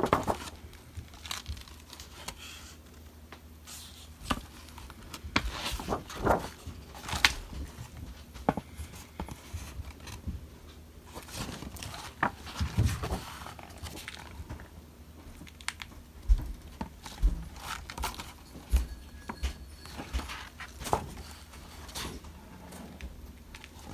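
Pages of vintage hardback picture books being turned and handled: irregular paper rustling and crinkling with scattered short taps and clicks.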